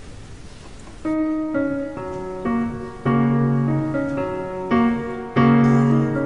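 Keyboard with a piano-like tone playing blocky chords that change every half second or so. The chords come in about a second in, after faint hiss. This is a dubbed-in parody soundtrack, not the pianist seen playing.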